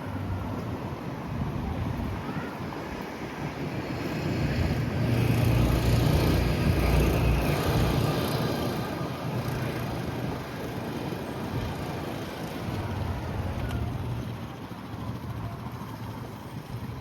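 Strong wind gusting across the microphone: a low rushing rumble that swells to its loudest about six seconds in, then eases off.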